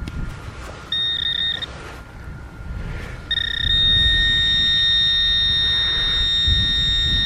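Metal detector sounding a steady, high-pitched target tone on a metal signal: a short blip about a second in, then a long held tone from about three seconds in. Dull handling and digging thumps sound underneath.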